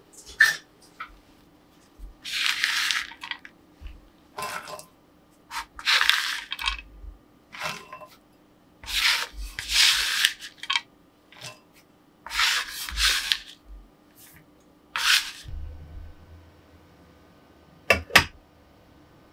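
Chopped white chocolate being scraped together across a wooden cutting board with a flat blade, in a series of rasping strokes of about a second each. Near the end come two sharp knocks as a glass bowl is set onto a saucepan for the water bath.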